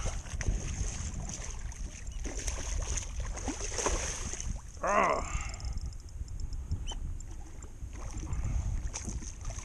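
A hooked sheepshead splashing at the water's surface as it is netted beside a kayak, over steady wind rumble on the microphone. There is one short wavering call about halfway through.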